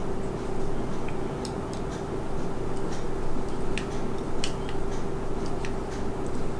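A small screw being driven by hand with a screwdriver into a scale-model car part, giving irregular small clicks and ticks as it turns, over a steady hum.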